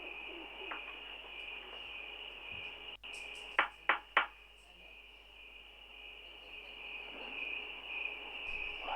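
Crickets chirping steadily. About three and a half seconds in comes a quick run of three sharp clicks, louder than the crickets.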